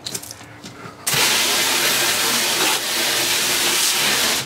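A hose nozzle spraying a hard jet of water into a steel tank to rinse it out: a loud, steady hiss that starts suddenly about a second in and stops at the end.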